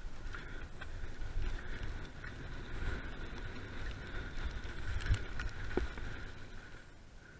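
Mountain bike descending a rough dirt trail: a low rumble from the tyres and wind on the camera, with rapid clicks and rattles from the chain and frame over the bumps, and a steady high buzz. There are a couple of harder knocks about five to six seconds in.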